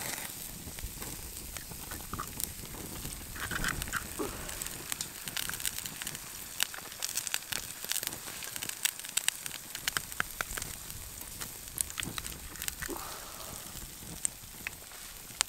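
A wood campfire crackles and pops under a steady sizzle of butter and eggs frying in a small pan on the grate. A few brief louder sounds come as eggs are cracked into the pan.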